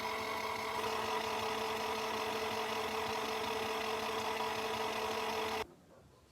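The small electric motor of a portable folding mini washing machine running with a steady hum, then cutting off suddenly near the end as it is switched off.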